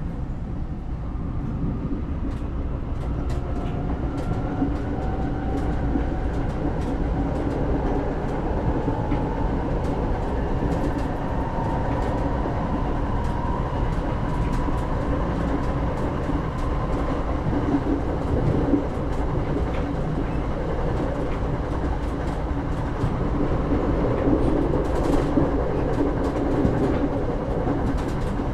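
Passenger train running along the track, heard from inside the carriage: a steady rumble of wheels on rails with scattered clicks from the rail joints. A faint whine slowly rises in pitch over the first half as the train gathers speed.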